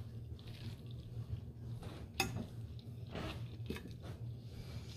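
Close-miked chewing and wet mouth sounds of someone eating, with a few sharp clicks, the sharpest about two seconds in, over a low steady hum.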